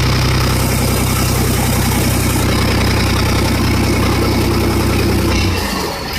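A heavy truck's diesel engine running at a steady, unchanging pitch. It dies away about five and a half seconds in.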